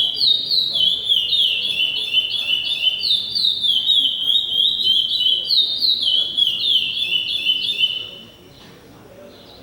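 A songbird singing a fast, unbroken song of repeated short downward-slurred notes, stopping about eight seconds in.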